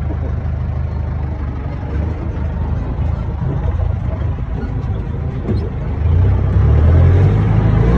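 Tractor engine running steadily, heard from inside the cab, with a low droning hum that grows louder about six seconds in.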